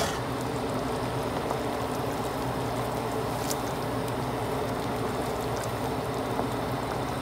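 Pot of sancocho, a thick meat-and-vegetable broth, boiling steadily: an even bubbling hiss with a low hum under it, and one faint tap about three and a half seconds in.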